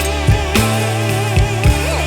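Background pop music with a steady drum beat and a sung vocal line.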